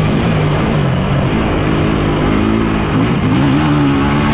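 Vehicle engine running under way, its pitch rising and falling with the throttle, rising again about three seconds in.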